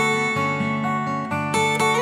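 Background music: an acoustic guitar strumming chords at a steady pace.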